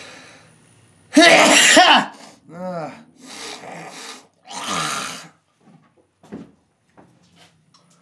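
A man's loud sneeze about a second in, part of a sneezing fit, followed by a short groan and two more forceful breathy bursts up to about five seconds in, then small sniffs.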